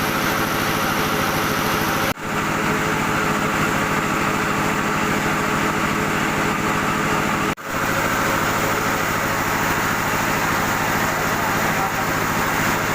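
Rice mill machinery, an old N50 milling machine with its husker and polisher, running at a steady pace with a fast, even mechanical pulse. The sound drops out very briefly twice, about two seconds and seven and a half seconds in.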